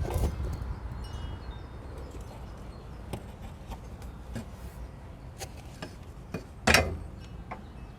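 Light metallic clinks and taps from car suspension parts being handled during a rear coil spring refit, with one louder metal clank about two-thirds of the way through.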